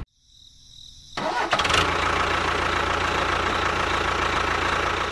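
A motor starts up abruptly about a second in, after a brief silence, and then runs steadily with a low hum.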